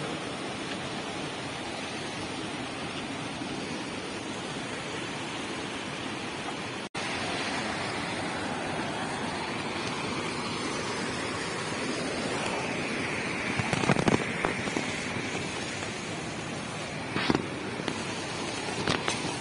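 A swollen, muddy mountain stream in flood, rushing over boulders as a steady noise of water. The sound drops out for a moment about a third of the way in. In the second half come a few sharp knocks and bumps.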